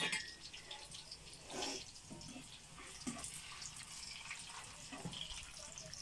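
Meat patties frying in oil in a pan over a wood-burning stove: a faint, steady sizzle with scattered small crackles and pops.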